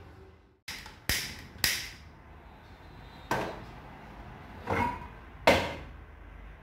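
About six sharp clicks and knocks at a gas cooker, irregularly spaced, each with a short ring, the loudest about five and a half seconds in, as the burner is readied for heating oil.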